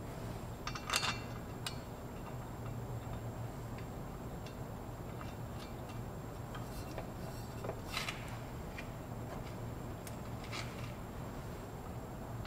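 Small metal clinks of bolts, nuts and spacers being handled and threaded by hand into a driveshaft's U-joint flange: a few scattered sharp clicks, the sharpest about a second in, over a steady low hum.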